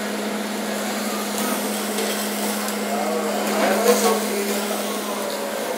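Steady hiss of food sizzling on a teppan griddle with the exhaust hood running, over a constant low hum. Faint voices and a short clink come through about four seconds in.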